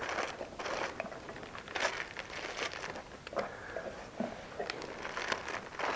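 Packing material being handled and pulled apart during an unboxing: irregular crinkling and rustling with scattered small clicks and taps.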